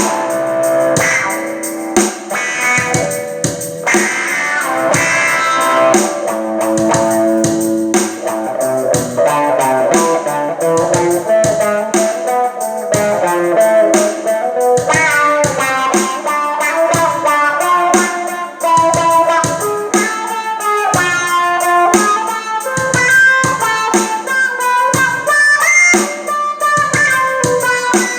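Electric guitar played through a wah-wah pedal, with dense chords in the first half and single-note lead lines from about halfway through.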